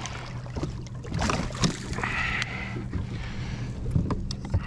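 Handling knocks and clatter on a plastic fishing kayak as a landed red drum is brought aboard and laid across the angler's lap, with several sharp knocks and a brief splash about two seconds in, over a steady low hum.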